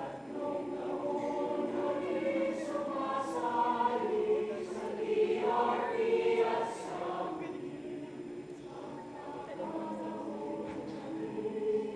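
Mixed choir of men's and women's voices singing together in harmony, swelling louder in the middle and then softening.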